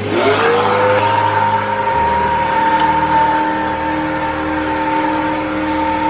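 Kärcher WD3 wet-and-dry vacuum cleaner's motor switching on and spinning up over about a second, then running steadily with a high whine over the rush of air.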